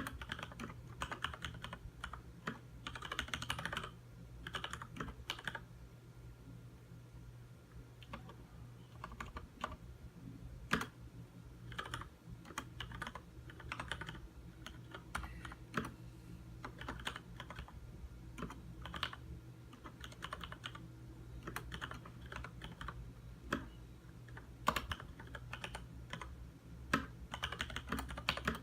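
Typing on a Leopold FC900R mechanical keyboard with Cherry MX Red linear switches. Runs of quick keystrokes come with short pauses between them, and now and then a single louder key strike stands out.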